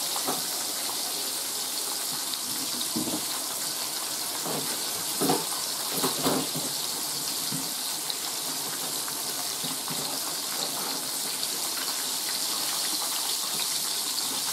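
Chicken fried steak frying in a skillet of hot oil, a steady sizzle. A few short clunks come between about three and six seconds in.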